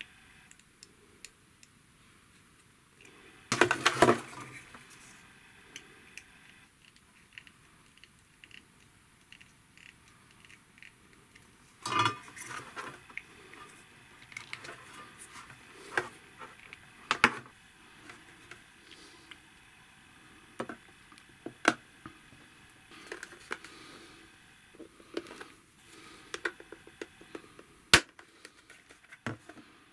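Handling noises of a plastic bottle, its plastic screw cap and clear tubing on a workbench: scattered clicks and taps, with louder brief clusters of knocking and rustling about four and twelve seconds in and a sharp single click near the end.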